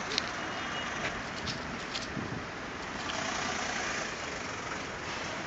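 Steady background road traffic, with a few light clicks in the first couple of seconds.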